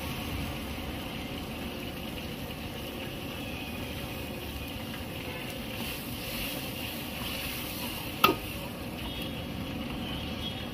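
Manchow soup bubbling in a steel wok, stirred with a steel ladle as cornflour slurry is worked in. A single sharp metal knock of the ladle against the wok about eight seconds in.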